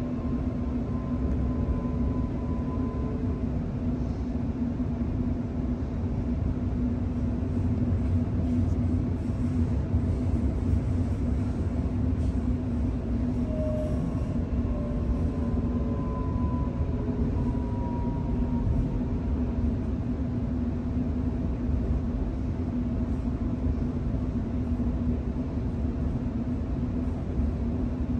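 Inside the carriage of a Sydney Trains Millennium (M set) electric train under way: a steady rumble of wheels on the rails with a constant low hum. Faint whining tones twice slide slowly down in pitch, once early and once in the middle.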